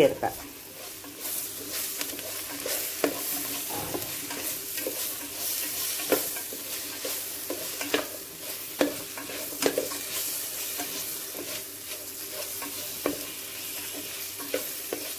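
Sliced onions and tomatoes sizzling in hot oil in a stainless steel pan while being stirred and sautéed with a spatula. The spatula now and then scrapes and knocks against the pan in sharp, irregular clicks over the steady hiss of the frying.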